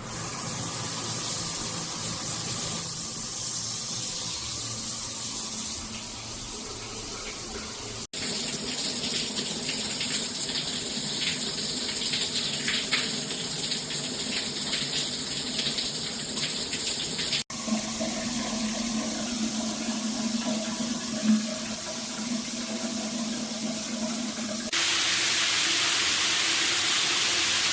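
Water spraying steadily from a 9-inch overhead rain showerhead. The sound changes abruptly with short breaks about 8 and 17 seconds in, and turns into a flatter, steadier hiss near the end.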